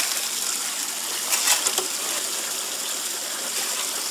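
Water from a pump feed line spraying and rushing steadily through a Gold Hog highbanker's hopper and classifier grate, washing a shovelful of gravel down into the sluice. A few stones click about a second and a half in.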